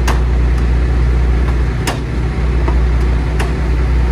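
Heavy diesel engine running steadily at idle, with three sharp clicks over it.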